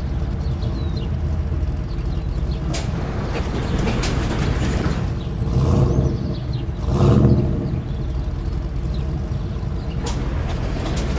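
Pickup truck engine sound effect running steadily, swelling louder for a moment around the middle as the truck drives along, with a couple of short clicks.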